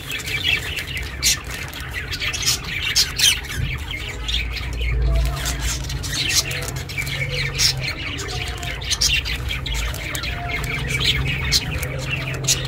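Budgerigars chirping and squawking: many short, sharp calls in quick succession, over a low steady hum.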